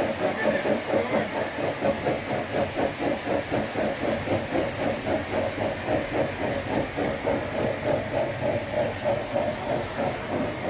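Sawmill machinery running steadily, with an even pulse about four times a second over a steady mid-pitched hum.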